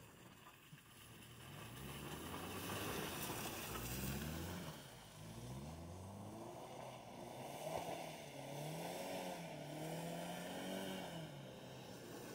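Toyota Tacoma pickup's engine revving up and down again and again as the truck spins its wheels round through deep mud.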